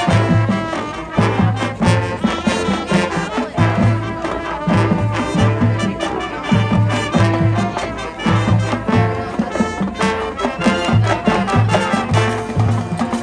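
High school marching band playing at full volume, brass carrying the tune (trombones and trumpets) over a steady, driving bass and drum beat.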